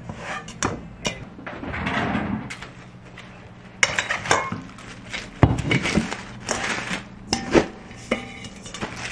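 Hands kneading flour dough in a stainless steel mixing bowl, then plastic cling wrap crinkling and the metal bowl clanking and knocking as it is handled and turned over. A string of sharp knocks starts about four seconds in, the loudest in the second half.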